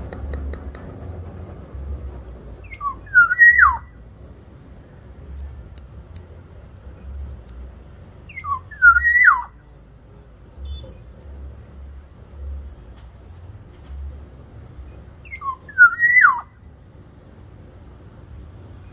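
Black-naped oriole giving its fluty whistled song: the same short phrase three times, about six seconds apart. Each phrase is a few clear rising notes ending in a sharp downward slide.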